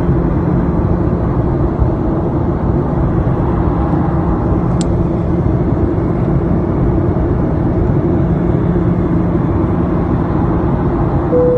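Jet airliner cabin noise in flight: a steady loud rumble of engines and rushing air with an even low hum, heard from a window seat inside the cabin.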